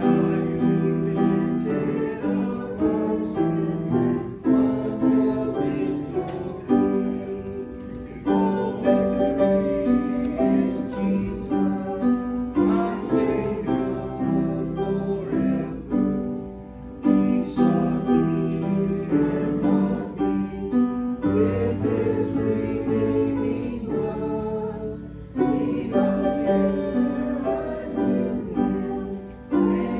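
A hymn played on a keyboard instrument, with the congregation singing along in held chords and short breaks between phrases.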